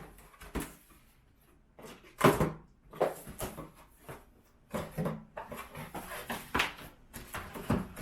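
Irregular knocks and clatters of vacuum parts and packaging being handled, the loudest a little over two seconds in.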